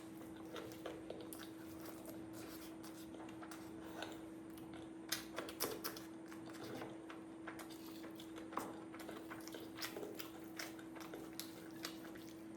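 A person eating by hand, with scattered soft chewing, smacking and clicking mouth sounds over a faint steady hum.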